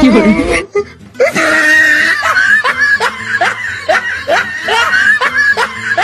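A short loud cry, then a woman laughing loudly and continuously in rapid rhythmic bursts, about three a second.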